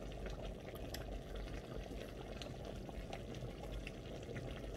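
Pot of egusi soup simmering on the hob: a steady low bubbling hiss with scattered small pops.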